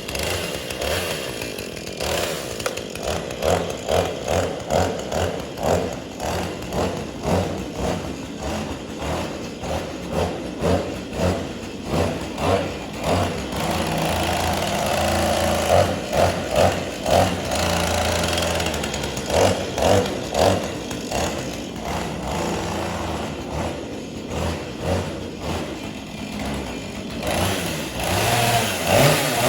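Chainsaw engine running and being revved in quick repeated blips, about two a second, with stretches held at a steadier speed in between.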